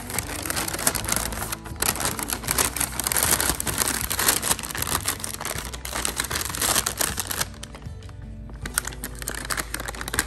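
Sandwich wrapping crinkling and rustling in irregular handling noises as a sandwich is wrapped up, over background music. The crinkling eases off briefly about three quarters of the way through, then picks up again.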